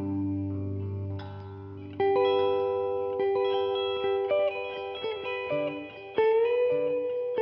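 Electric guitar played clean through an Ibanez DE-7 delay pedal: single sustained notes and small chords, with new notes picked about two seconds in and again near the end, one with a slight bend.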